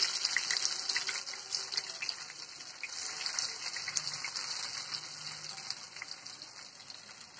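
Potato pieces deep-frying in hot oil in a steel karahi: a steady hissing sizzle with scattered pops and crackles, fading gradually toward the end.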